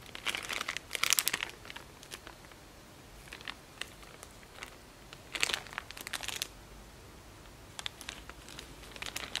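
Thin plastic wrapping of a McDonald's toy crinkling as a squirrel monkey picks and tugs at it to unwrap it, in bursts of rapid crackling: one at the start, another about five seconds in, and more near the end.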